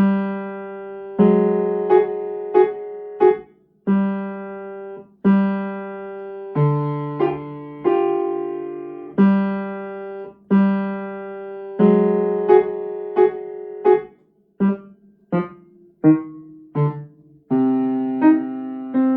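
Piano playing a slow beginner piece in a five-note C minor hand position (C, D, E flat, F, G): struck two-note chords that ring and fade, repeating about every second and a half, with a quicker run of single notes in the second half.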